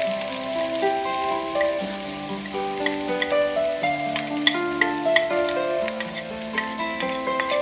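Onions and ground spices sizzling in hot oil in a kadai, with a spatula stirring and clicking against the pan. A melody of held notes plays over it as background music.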